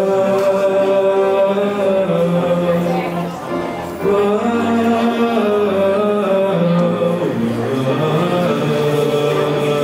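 Music: a young male singer holds long notes into a microphone, with other musical parts sounding underneath, dipping briefly about three to four seconds in.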